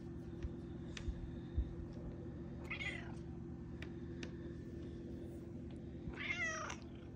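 Domestic tabby cat meowing twice: a short, fainter meow about three seconds in and a longer, louder one near the end that falls in pitch. A steady low hum runs underneath, with a few soft knocks in the first two seconds.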